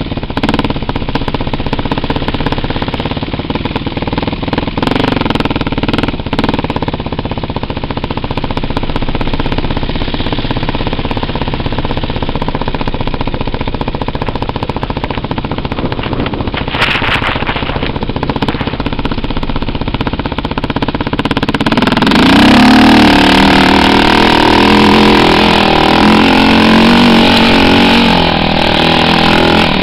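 A 2007 Suzuki QuadRacer 450's single-cylinder four-stroke engine running as the quad rides along at low speed. It gets louder about three quarters of the way through as the quad picks up speed.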